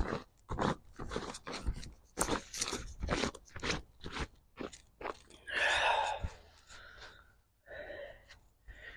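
Short crunching and rustling handling noises from the angler's hands working on his fishing tackle, about three or four a second at first, then two longer scuffs about halfway through and near the end.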